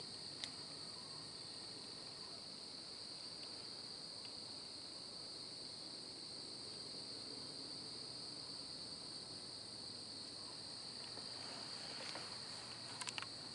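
A steady, high-pitched chorus of night insects with no break. A few faint clicks come near the end.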